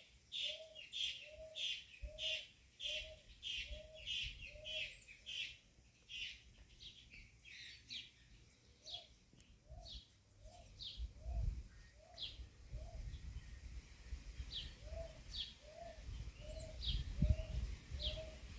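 Birds singing: one repeats a low, hooting note about twice a second in runs of several seconds, over quick, high chirps from others. Low rumbles of wind on the microphone come now and then in the second half.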